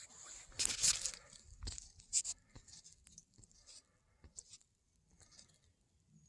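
Footsteps crunching on gravel and dry leaves, in irregular steps about half a second apart, loudest about a second in.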